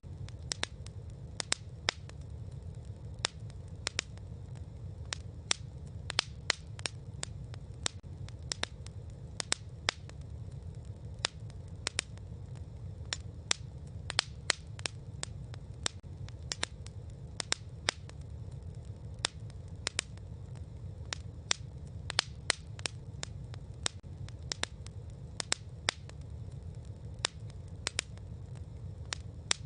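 Campfire crackling: frequent, irregular sharp pops and snaps over a steady low rumble.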